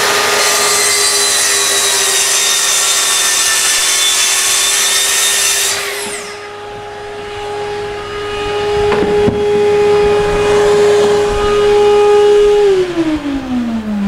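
Festool plunge-cut track saw running at full speed and cutting through melamine sheet along its guide rail, with a shop vac drawing dust from the saw. About six seconds in the cutting noise drops away, the motors keep running, and near the end the saw's motor is switched off and winds down in pitch.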